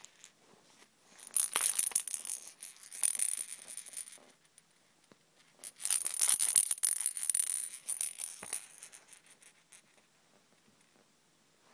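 A person making a crackly hissing noise with the mouth, in two bursts of about three seconds each, with a short pause between them.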